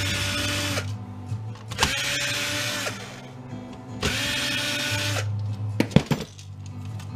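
Cordless drill-driver backing screws out of a scanner's plastic housing: three short runs of about a second each, the motor whine climbing as it spins up and dropping as it stops. A few sharp knocks follow near the end.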